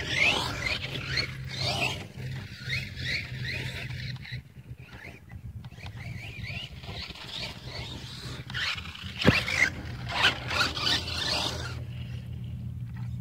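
Brushless electric motor of an RC monster truck whining, rising in pitch again and again in bursts as the throttle is pushed, quieter for a few seconds in the middle, with one sharp knock about nine seconds in.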